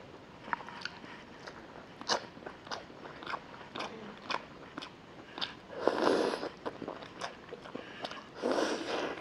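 Close-miked eating: a person biting meat off a chicken leg with hand-held rice and chewing it, with many short wet mouth clicks and smacks. There are two louder, longer stretches of biting and chewing, about six seconds in and again near the end.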